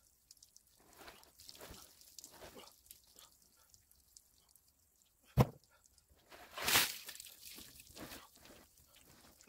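Heavy plastic tarp, laden with rainwater, being bunched up and dragged, crinkling and rustling with water sloshing in it. A sharp knock comes about five seconds in, and a louder stretch of rustling just after.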